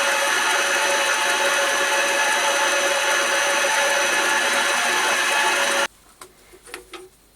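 Smart and Brown Model L metal lathe running steadily with a whine, turning a wooden file handle. The sound cuts off suddenly about six seconds in, followed by a few faint knocks.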